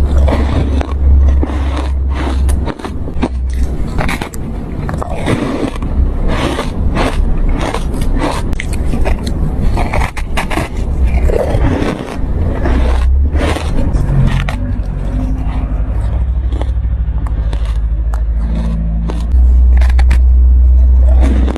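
Ice being bitten and crunched close to the microphone: a fast, irregular run of sharp crunches over a steady low rumble that grows louder near the end.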